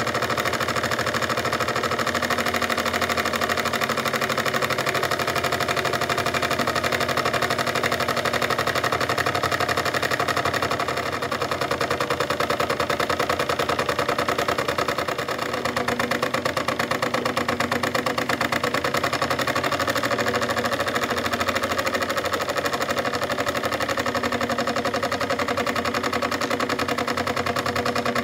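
Jensen 25 G electrically heated model steam engine running steadily, with a fast, even mechanical beat from the little engine as it drives its belt-driven dynamo.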